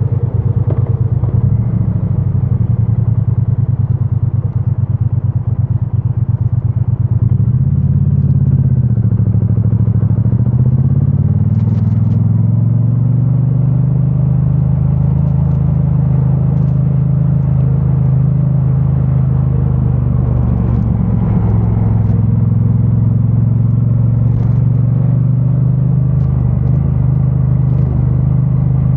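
2022 Triumph Bonneville T100's 900 cc parallel-twin engine running through its stock exhaust: a low, pulsing beat at first, a dip and then a rise in engine pitch about eight to eleven seconds in as the bike slows and pulls away again, then steady cruising.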